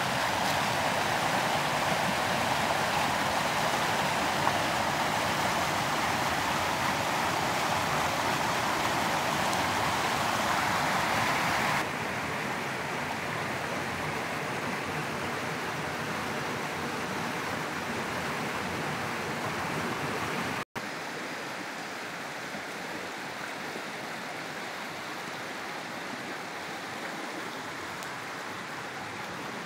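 River water rushing and churning over rocks in small rapids, a steady, even rush of white water. It steps down in loudness about twelve seconds in, and again after a momentary gap about two-thirds of the way through.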